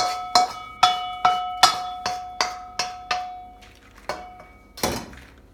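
Metal spatula tapping against a cooking pan that rings with each hit, about two or three taps a second, while the stir-fried tomato and egg is served out. The taps stop about three seconds in, followed by one more tap and a duller knock near the end.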